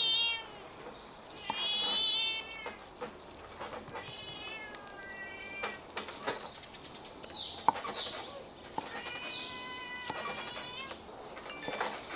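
Several drawn-out, wavering animal calls, each about a second long, are the loudest sound. Under them come a few short falling chirps and occasional sharp knocks of a cleaver slicing braised beef shank on a wooden chopping board.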